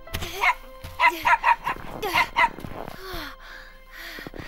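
A small dog barking, a string of short barks in the first half, over background music.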